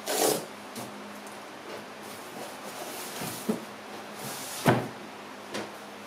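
A large cardboard box being handled and tipped over onto a wooden desk: a scraping, rustling brush of cardboard just after the start, a few light knocks, and a loud thump about three-quarters of the way through as the box is set down.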